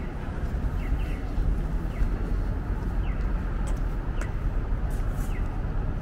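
Steady downtown traffic rumble, with a short falling electronic chirp repeating evenly about once a second, the kind of chirp an accessible pedestrian crossing signal makes.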